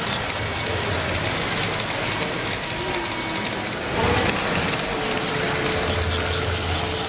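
S gauge model train running along the layout's track, mixed with the steady babble of a crowded exhibition hall.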